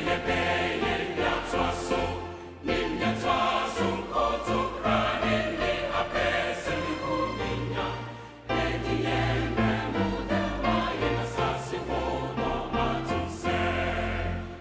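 Choir singing over instrumental backing music with a steady bass, the music dipping briefly twice.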